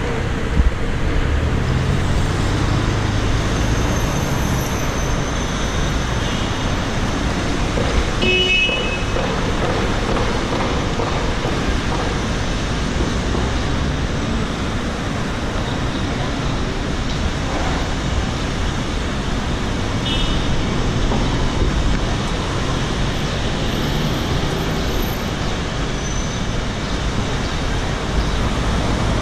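City street traffic: a steady roar of cars driving past close by, with two brief high beeps, about eight seconds in and again about twenty seconds in.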